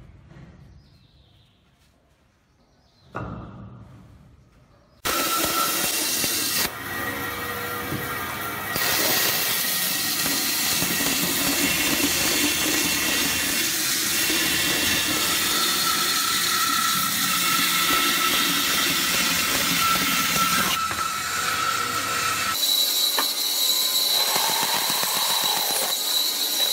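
Band saw running and cutting a curve through a thick block of wood: a steady, loud whirring noise with a thin whine, starting abruptly about five seconds in. Before it there are only a few faint handling sounds and a single knock.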